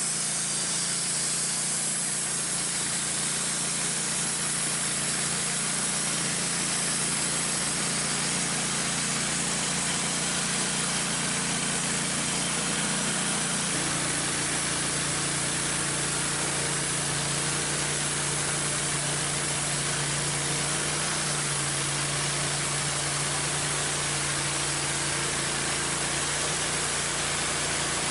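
Wood-Mizer LT15 portable bandsaw mill sawing through a walnut log: its gas engine running steadily under load beneath the hiss of the band blade in the cut.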